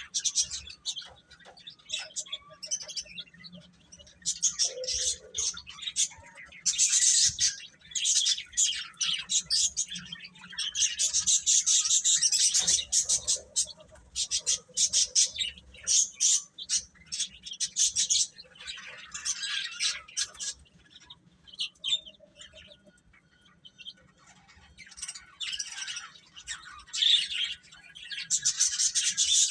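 Baby chicks peeping: many rapid, high-pitched chirps in bursts, with a quieter lull a little over two-thirds of the way through.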